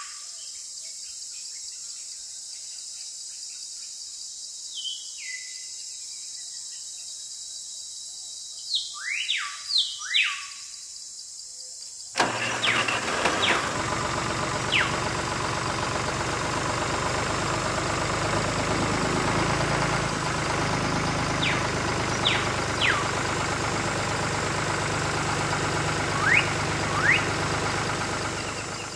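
Short whistle-like chirps over a quiet hiss. About twelve seconds in, a steady mechanical hum with a low drone starts suddenly and runs on, with a few more short chirps over it.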